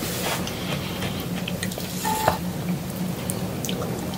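Close-up wet chewing and mouth sounds of a person eating by hand, with scattered short clicks, over a low steady hum.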